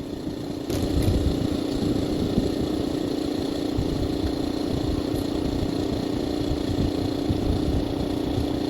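Honda RSX motorcycle's single-cylinder four-stroke engine, freshly rebuilt, running at a steady idle. It picks up slightly a little under a second in, then holds an even speed.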